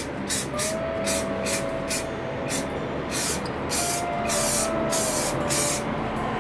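Aerosol spray-paint can sprayed in short hissing bursts, several quick ones in a row, then a few longer sprays over the second half.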